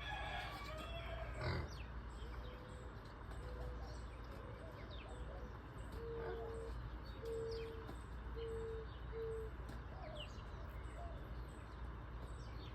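Birds calling faintly: short falling chirps and, in the middle, a run of four steady held hooting notes.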